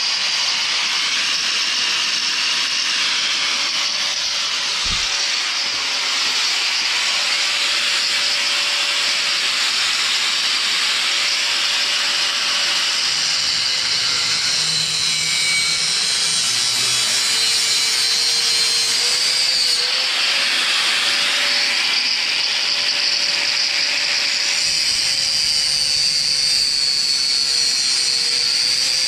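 Angle grinder with a cutoff disc cutting through a generator's tubular steel frame: a steady, loud grinding hiss over the motor's whine, which wavers in pitch as the disc is pressed into the metal.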